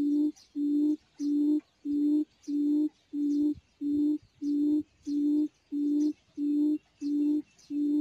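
Recorded quail call played through a speaker as a trapping lure: an even run of low, steady hooting notes, about one and a half a second.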